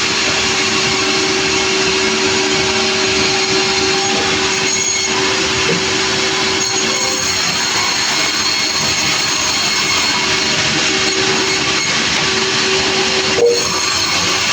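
Sawmill machinery running steadily, a loud continuous mechanical hum with a constant drone, and a brief knock near the end.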